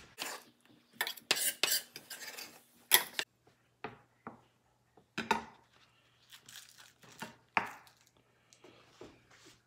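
Chef's knife and spoon clattering and knocking on a bamboo cutting board, a quick cluster of knocks in the first three seconds, then scattered single knocks of the knife blade on the board as green onions are cut.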